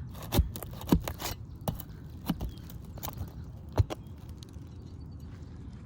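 A tool scraping under roof shingles with about five sharp knocks, the loudest near the end, while a damaged shingle is worked loose from its seal and nails.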